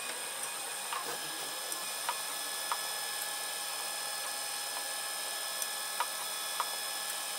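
Protomaker Sprint FDM 3D printer running while printing its first layer: a steady whine from the stepper motors and cooling fans over a hiss, with a handful of short sharp clicks.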